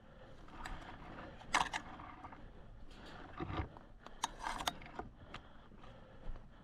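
Irregular sharp clicks, knocks and rattles from a player's gear and movement, with the loudest click about a second and a half in, a dull thud near the middle and a quick cluster of clicks a little later.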